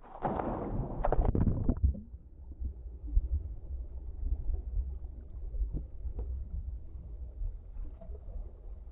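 A person falls backward into a swimming pool with a loud splash over the first two seconds. After that comes the low, muffled rumble of churning water, heard from a camera under the surface, with faint bubble ticks.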